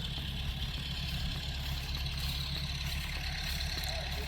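An engine idling steadily, a low even rumble that holds without revving.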